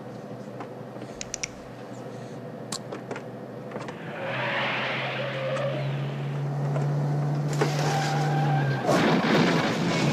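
A vehicle's engine runs under steady road noise, its note climbing slowly as it speeds up, with a few sharp knocks around a second or two in. A hissing swell comes after about four seconds, and a loud rush of road and tyre noise near the end.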